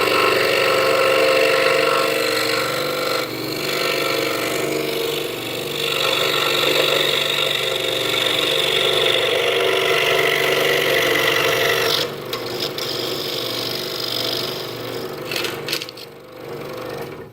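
Scroll saw running, its Pegas blade cutting through half-inch pine with a steady motor hum under the rasp of the cut. The sound drops in level about twelve seconds in and fades away near the end.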